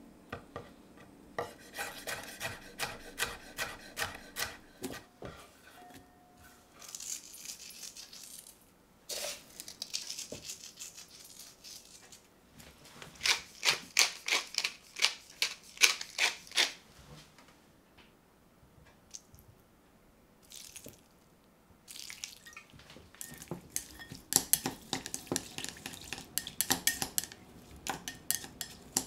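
A knife slices red chilli into thin strips on a wooden chopping board, making quick taps. Then a hand-twisted pepper mill grinds black pepper over a glass bowl with a fast, dense clicking, which is the loudest part. Near the end, wooden chopsticks toss the chilli strips in the glass bowl with light clinks and taps.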